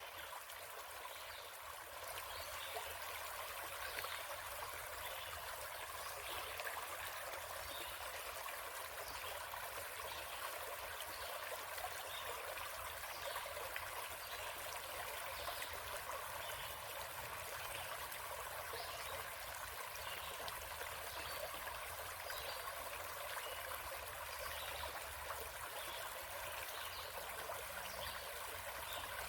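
Stream flowing steadily over its bed, a continuous rush of running water that fades in over the first two seconds.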